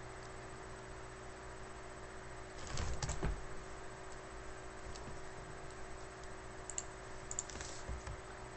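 Computer keyboard typing: a short burst of keystrokes about three seconds in, then a few scattered clicks, over a steady faint hum.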